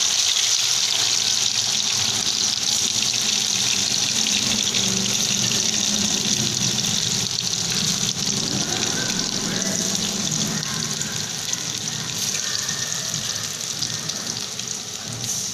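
Batter-coated chicken pieces deep-frying in very hot oil in an aluminium pot: a loud, steady sizzle from oil heated on a high flame, easing off slightly toward the end.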